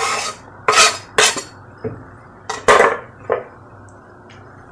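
Kitchen knife scraping chopped walnuts off a wooden cutting board into a frying pan: about half a dozen short scrapes and knocks of the blade.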